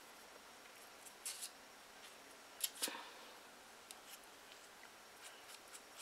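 Faint handling sounds of a cotton-covered paper mache dog figure: soft rustling, with two short scratchy rustles about a second in and near the middle, the second starting with a sharp click.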